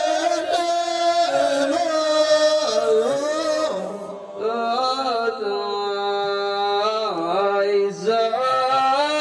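Ahwash chant: men's voices singing long held notes that slide slowly from pitch to pitch, with no drumming. The line breaks off briefly about four seconds in and a new long phrase begins.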